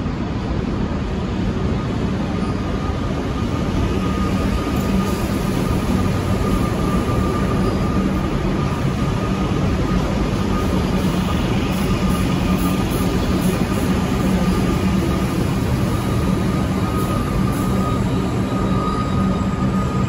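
Steady rumble of trains at a station platform: a suburban electric train moving along the near track while diesel railcars run at the platform, with a constant low hum and a thin steady whine over it.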